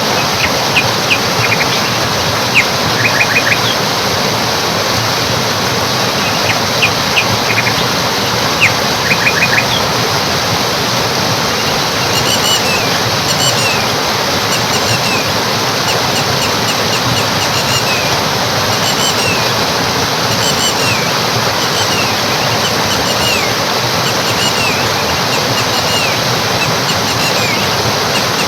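Stream water rushing steadily, with birds calling over it: clusters of quick sharp chirps in the first part, then repeated short falling calls.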